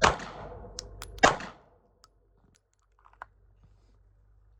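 Two pistol shots from a Canik MC9 about a second and a quarter apart, each a sharp crack with a short echo.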